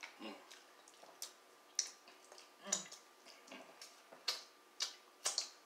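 Eating noises from a seafood boil: about a dozen short, faint clicks and smacks of chewing and handling the food, spread unevenly.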